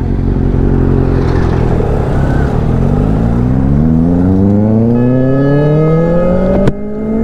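Sport motorcycle engine accelerating hard, its pitch climbing steadily for several seconds under a rush of wind noise, then cutting off abruptly with a click near the end.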